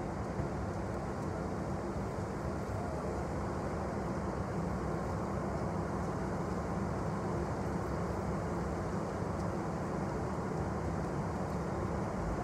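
Freight train rolling past with a steady, even rumble of wheels on rail.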